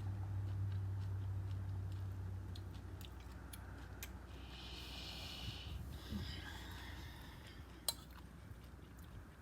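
A lull between bites of cereal: a low hum that fades after the first few seconds, a brief soft rustle in the middle, scattered light ticks and one sharp click near the end, like a spoon touching the bowl.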